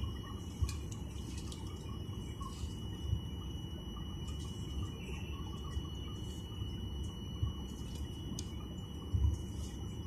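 Jet airliner cabin noise while taxiing: a steady low rumble from the engines and rolling gear, with a thin steady high tone over it. A few soft thumps come through as the wheels roll over taxiway joints, the loudest near the end.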